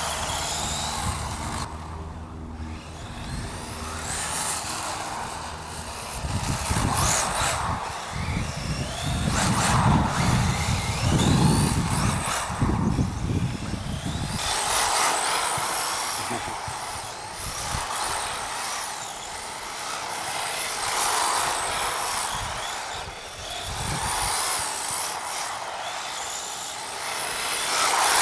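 A 1/10-scale RC car built on an HSP buggy chassis driving back and forth. Its motor and tyres rise and fall every few seconds as it speeds up, turns and passes by.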